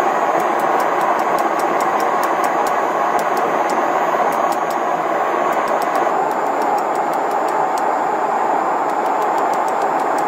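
Hand hammer striking a red-hot leaf-spring steel blade on an anvil: quick blows about three a second, with a short pause a little past the middle. Under them runs a loud, steady rushing noise.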